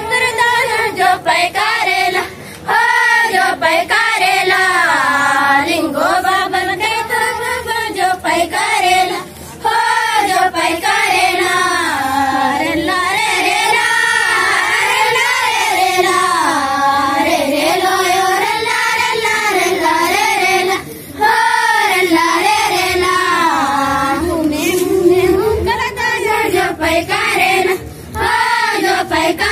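A group of girls singing a Gondi rela pata song together in one voice, the melody rising and falling line by line, with brief pauses between phrases.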